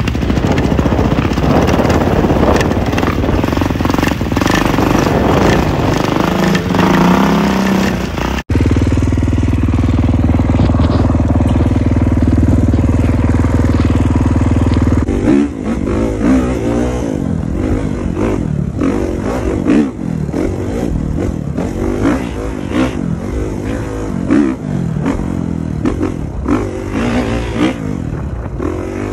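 Kawasaki dirt bike engine running. Wind rushes over it at first, then it idles steadily. About fifteen seconds in, it revs up and down again and again as the bike rides off.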